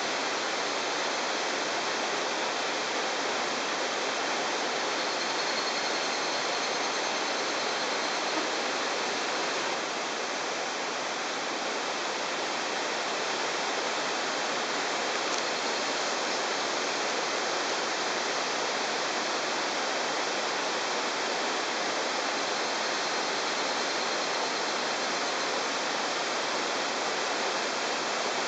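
Steady rushing of a mountain stream: an even, unbroken hiss of flowing water.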